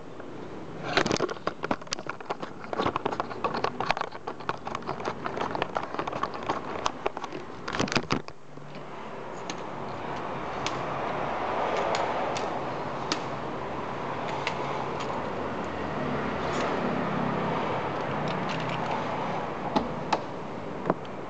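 Camera handling noise: dense crackling, rubbing and knocks as the camcorder is moved and fumbled by hand. The rubbing stops suddenly about eight seconds in and gives way to a steady background hiss with occasional faint ticks.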